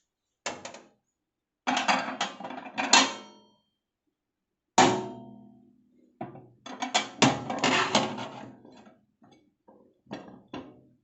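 Glass microwave turntable plate being fitted back onto its roller ring and drive in the oven cavity: bouts of clattering knocks, with one sharp clink about five seconds in that rings briefly.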